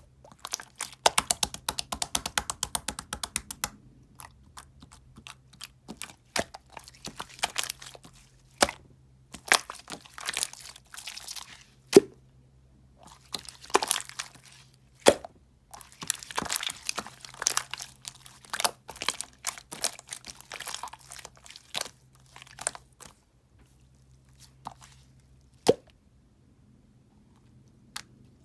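Soothing gel handled close to the microphone, making crisp crunching and crackling. A fast run of clicks fills the first few seconds, then come irregular bursts of crackle with a few sharp single snaps, over a faint steady low hum.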